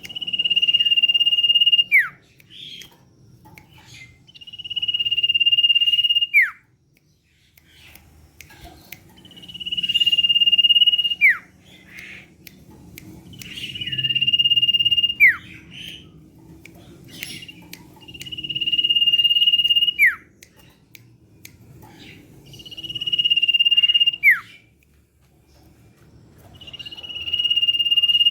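Common iora singing: a long, steady, high whistle that swells in volume for about two seconds and ends in a quick downward-sliding note. The phrase repeats about every four and a half seconds.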